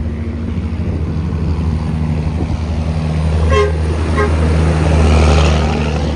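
Heavy diesel truck engine running steadily, growing louder about five seconds in, with two short horn toots a little past the middle.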